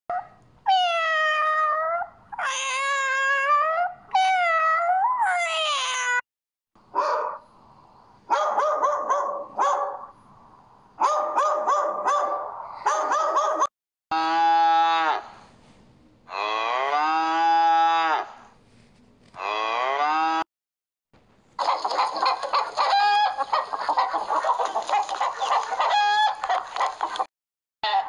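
A run of animal call sound effects in turn: a cat meowing four times with bending, rising-and-falling calls, then a stretch of short choppy calls from another animal, then a cow mooing three long times, then a dense stretch of rapid calls, with a sheep's bleat starting right at the end.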